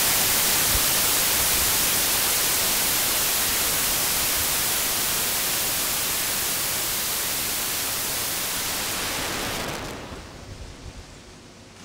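Even static hiss that slowly fades, then drops away sharply about ten seconds in, leaving a fainter, duller hiss.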